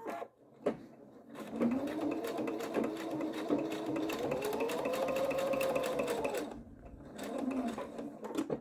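Computerized sewing machine stitching a seam through quilted cotton: after a couple of clicks it starts up, its motor hum rising in pitch as it speeds up, runs for about five seconds, then slows and stops. It runs again briefly near the end.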